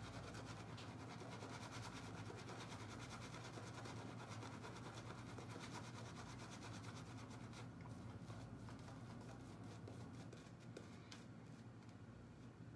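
Badger shaving brush scrubbed in quick strokes over a lathered face: a soft, continuous wet scrubbing and crackling of the lather. The speaker says there is a little too much water in the brush, so the lather is wet.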